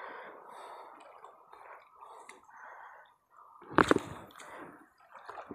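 Small waves lapping and gurgling at the water's edge over rocks, with one sharp, loud bump about four seconds in.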